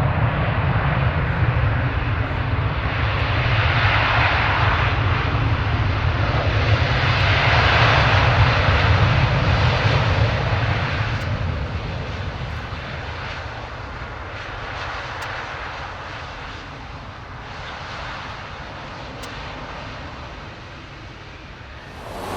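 Jet engine noise of an Airbus A350 airliner passing overhead, a rushing sound over a low rumble that is loudest about eight seconds in, then fades away steadily.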